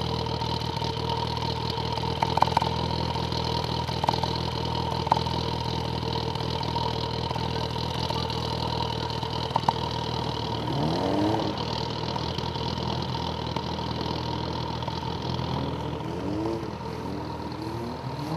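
Rally car engine idling steadily, with a brief rising rev about eleven seconds in and a few short rising revs near the end.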